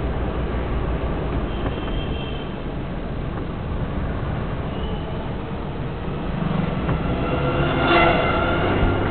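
Steady low rumble of a vehicle driving through city traffic, engine and road noise together, with a short horn blast about eight seconds in.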